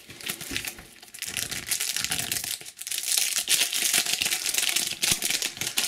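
Crinkling of a plastic Panini Adrenalyn XL booster pack wrapper as it is handled and opened by hand. It is quieter at first and gets louder about two seconds in.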